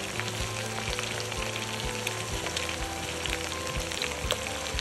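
Pork and kimchi sizzling as they stir-fry in a pan: a steady frying hiss with scattered crackles.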